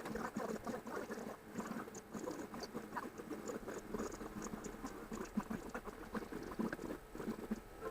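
Cat and kittens heard in a timelapse recording sped up about sevenfold, so their movements and small sounds run together into a rapid, irregular patter of clicks and squeaks.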